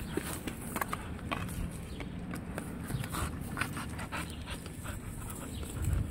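Border collie panting as it plays with a stick held in its mouth, with scattered short clicks and rustles.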